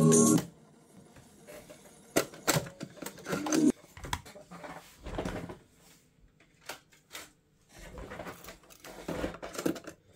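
Music from a Sharp GF-382 boombox's cassette playback cuts off about half a second in as the deck's stop key is pressed. It is followed by scattered mechanical clicks and clunks of the cassette deck as the door is ejected and a cassette is taken out and loaded back in.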